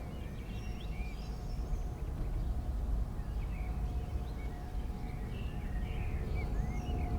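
Small birds chirping over a steady low rumble. A faint steady whine grows toward the end: a jet airliner on landing approach coming closer.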